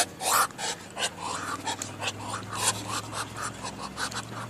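Duck hissing in a rapid series of short breathy bursts, loud at first, then fainter and quicker. It is the angry hiss of a duck that does not quack and is attacking.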